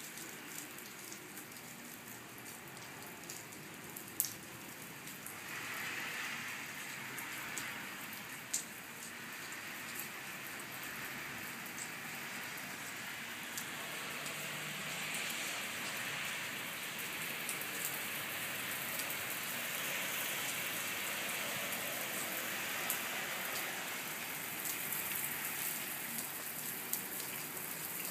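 Heavy rain falling steadily on a tiled rooftop terrace, gradually growing louder, with occasional sharp ticks of drops landing close by.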